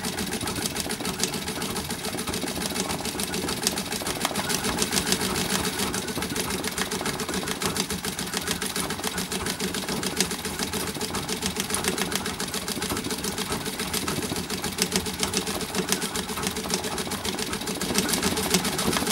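Vintage treadle sewing machine running steadily, its needle going up and down in a rapid, even ticking rhythm as it sews a straight stitch through hooped fabric.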